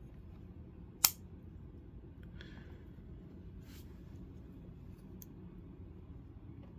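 One sharp click about a second in, then a few faint light ticks and a soft scrape, as the blade and washer of a folding knife are handled and set onto the pivot during reassembly.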